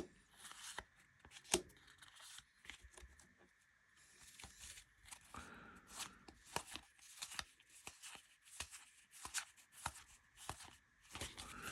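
Baseball trading cards being handled and flipped through one after another: a quiet, irregular run of small card-stock clicks, slaps and slides.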